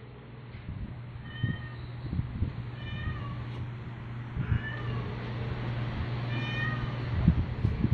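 Cat meowing four times, short high-pitched calls that fall in pitch, about every one and a half to two seconds, over a steady low hum.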